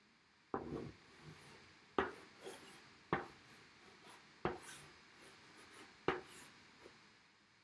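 Chalk drawing on a blackboard: five strokes about a second or so apart, each starting with a sharp tap of the chalk and trailing off in a scratchy scrape.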